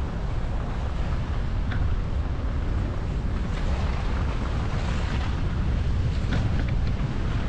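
Steady low rumble and wind buffeting on a car-mounted microphone outside the car, with tyre noise from driving on wet, slushy streets.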